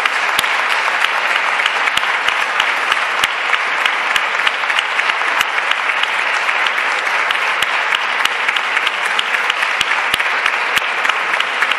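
Applause from a partly filled parliament chamber: a steady clatter of many hands, with sharp single claps standing out.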